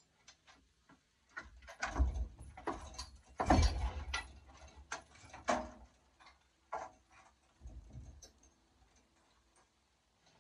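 A raccoon hide being pulled and worked down off a hanging carcass by hand: irregular rustles, knocks and clicks, loudest about two and three and a half seconds in, then fading to a few scattered ticks. The hide of a big male raccoon is tough to strip.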